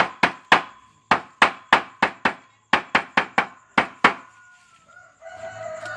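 Chopping on a wooden block: about fourteen sharp knocks in quick uneven runs, stopping about four seconds in. A rooster starts crowing about five seconds in.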